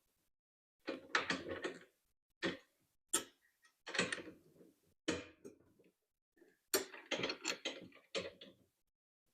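Bursts of metallic clicking and clinking from a small wrench-type multi-tool turning a lock nut to tighten a cart wheel onto its axle, in irregular spurts with short pauses between.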